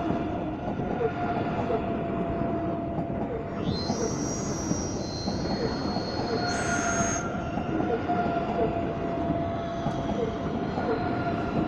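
Deutsche Bahn ICE 3 high-speed electric train moving past along the platform: a steady running noise with a constant electric hum and a regular patter of wheel clicks. Brief high-pitched squeals from the wheels or brakes come about 4 seconds in and again about 7 seconds in.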